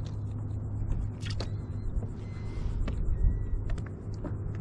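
Wind rumbling steadily on the microphone over open water, with a few faint clicks.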